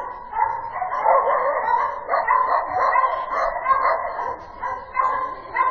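A dog barking over and over, a quick string of short barks.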